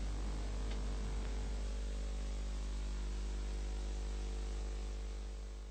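Steady low electrical hum with a layer of hiss and no programme sound, fading slightly near the end.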